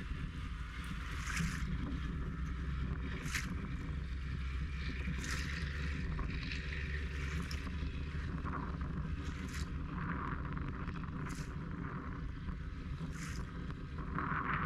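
Seaside ambience: a steady low rumble of wind on the microphone, with small waves washing in as brief hisses about every two seconds.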